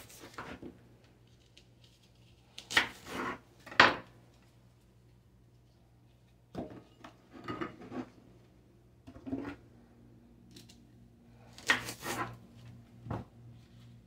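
Kitchen knife cutting an apple on a wooden cutting board: scattered, irregular clacks and taps of the blade and utensils against the board. A faint low hum runs underneath.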